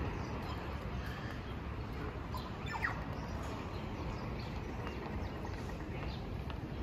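City street ambience: a steady low hum of traffic and town noise, with a few short bird chirps over it, one a brief falling call about three seconds in.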